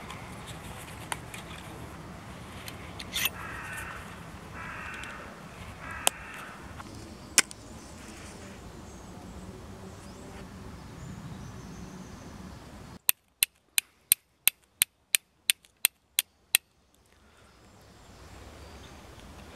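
Flint being struck with a C-shaped carbon-steel fire striker: eleven sharp clicks, about three a second, to throw sparks onto tinder fungus. Earlier, a bird calls three times.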